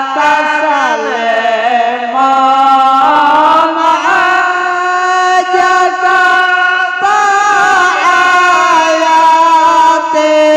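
A man's voice singing an Arabic devotional syair in praise of the Prophet, without instruments, holding long ornamented notes that slide down in pitch early on and climb again a few seconds in.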